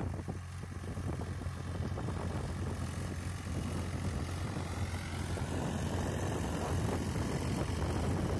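New Holland 3600-2 TX tractor's three-cylinder diesel engine running under load as it pulls a tined cultivator through the soil. It is a steady low drone that grows louder as the tractor comes closer.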